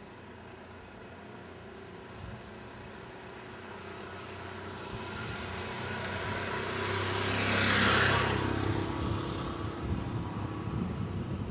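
Rail traffic: a passing train's rumble and hiss swells to a peak about eight seconds in, then eases off.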